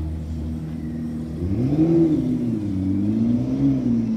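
McLaren P1's twin-turbo V8 running at low revs, then revved: the pitch climbs and falls about a second and a half in, and rises and falls again more gently near the end, as the car pulls away slowly.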